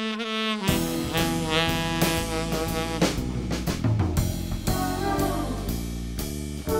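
Jazzy background music: a single held horn note, then about a second in a full band with drums and bass comes in.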